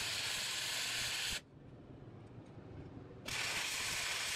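Wire-feed welder arc welding steel with a steady hiss, in two runs: the first stops about a second and a half in, the second starts about three seconds in.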